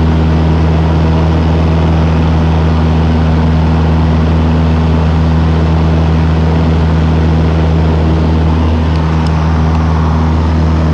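Cessna 172's piston engine and propeller heard from inside the cabin, a steady loud drone at constant power in the climb.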